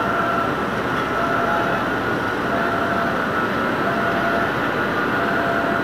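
Steady rumble and hiss of the helicopter destroyer Hyuga's machinery as the ship passes close, with a faint high whine over it.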